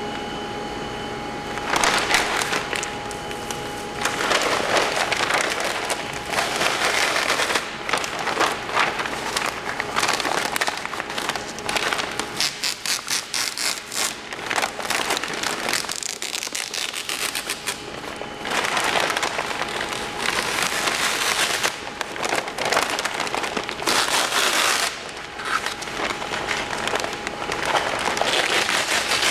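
Peel ply being ripped off a cured carbon-fibre and epoxy laminate: a dense crackling tear, made in several long pulls with short pauses between.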